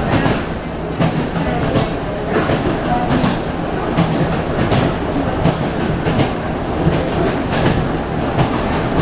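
Wheels of an ED9M electric multiple unit clattering over rail joints, heard from inside the carriage: regular knocks about every three-quarters of a second over a steady running rumble and low hum.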